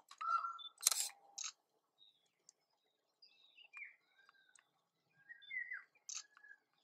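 Camera shutters clicking, a few sharp shots about a second in and another near the end, with faint short bird chirps falling in pitch in between.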